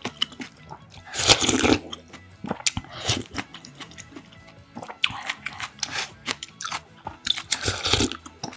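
Beef-bone broth slurped loudly from a spoon twice, about a second in and again near the end. Between the slurps come chewing and small clicks of the spoon in the glass bowl.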